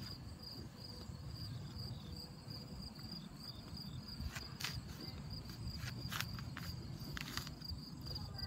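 A steady, high, pulsing trill of insects running on in the background, with a low rumble and a few short clicks and scuffs.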